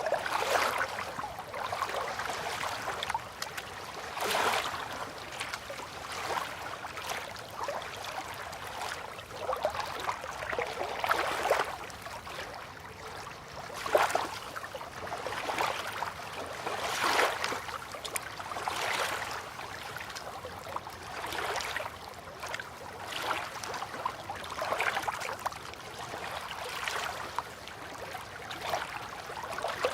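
Water lapping in small, irregular splashes, one swell every second or two, like gentle river waves against a shore or moored boats.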